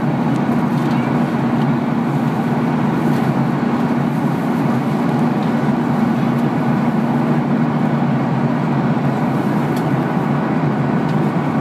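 Boeing 737-800 cabin noise beside its CFM56-7B turbofan engine in the climb: a steady rush of engine and airflow with a constant low drone under it.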